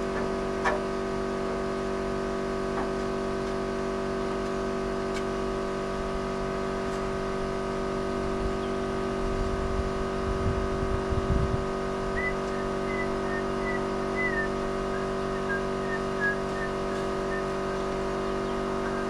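Steady mechanical hum at a constant pitch, like a motor or machine running, with a brief low rumble about halfway through and a few faint high chirps soon after.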